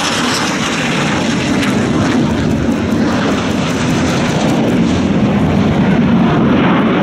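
Chengdu J-10 fighter's single AL-31FN turbofan engine running as the jet flies by, a steady jet roar that grows a little louder toward the end.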